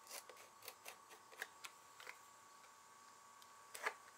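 Faint ticks and light scrapes of a utility knife blade trimming excess wood veneer along a panel's edge, with one louder click near the end.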